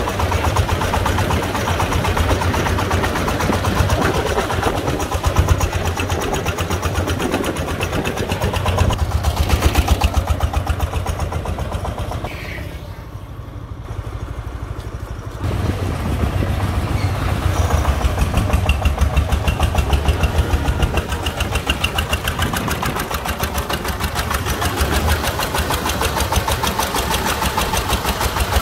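Công nông farm truck's single-cylinder diesel engine chugging with a fast, even beat. About halfway through it drops quieter for a few seconds, then comes back up.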